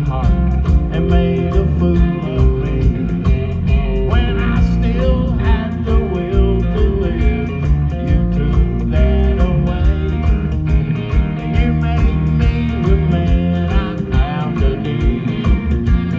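Live country rock band playing with a steady drum beat, bass and electric guitar.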